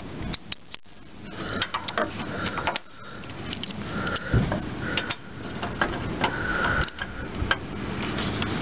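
Socket ratchet on an extension clicking in short bursts, among metal clinks and taps, as the mounting bolts of a pedal safety switch are undone for replacement.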